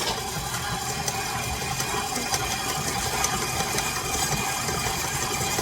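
Electric mixer motor running steadily, with a constant whirring hum.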